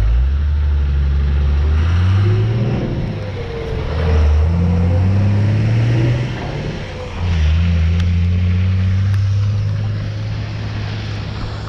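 Motor vehicle engine accelerating, its low note climbing, falling back about four seconds in and again about seven seconds in as gears change, then holding steady, with tyre hiss on a wet road.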